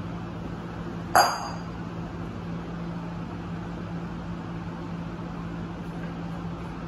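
A bowl set down hard on the hard floor about a second in: one sharp clink that rings briefly. A steady low hum runs underneath.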